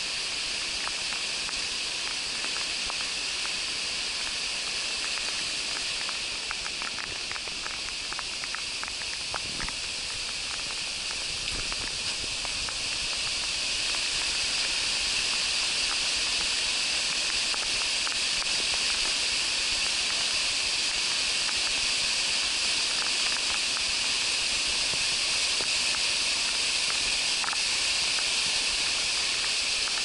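Rain-swollen mountain river rushing over rocks in rain, a steady hiss that grows louder about halfway through, with scattered light ticks of raindrops.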